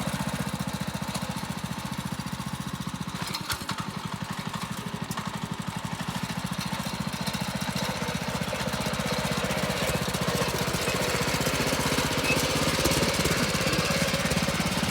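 Petrol rotary garden tiller's small engine running steadily with a rapid, even firing beat; it dips slightly a few seconds in and runs a little louder in the second half.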